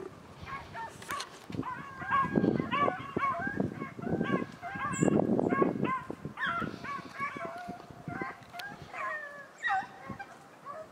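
A pack of beagles baying and yelping on a rabbit's scent trail, many overlapping calls: the dogs are running the rabbit. Two louder stretches of rustling noise come about two and five seconds in.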